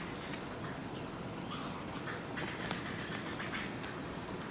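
Giraffe hooves clopping and thudding on wet ground as the herd trots, over a steady hiss of rain, with a cluster of clicks a little past halfway.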